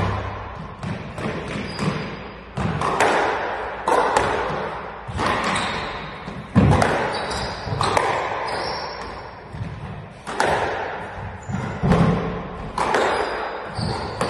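Squash rally: the ball is struck by rackets and smacks off the walls about once a second, each hit echoing around the enclosed court. Short high squeaks from players' shoes on the court floor come in between.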